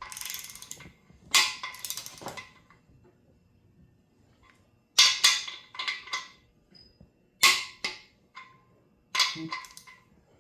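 Sharp metal clanks and knocks, about a dozen in loose clusters, each with a brief metallic ring: tools and engine parts being handled while main bearing clearances are checked.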